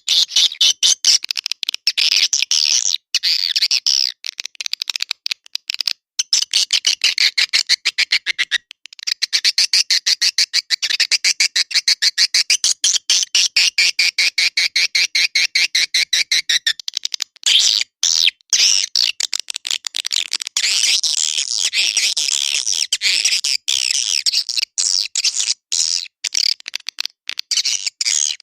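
Swiftlet calls played as a swiftlet-house lure sound: a dense, fast train of high chirping and clicking twitters that runs on almost without a break, pausing only briefly twice.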